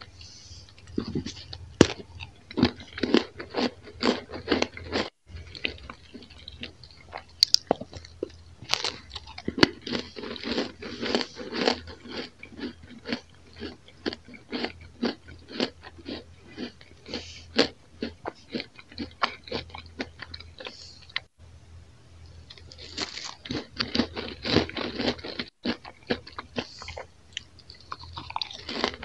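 A person biting and chewing crispy roumy-cheese toast: a long, fast run of dry crunches, about three or four a second, with a few short breaks.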